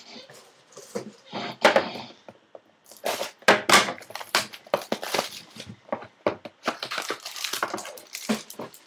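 Trading card packs being handled and opened on a desk: an irregular run of crinkling and rustling from plastic wrappers and cards, with small clicks and knocks.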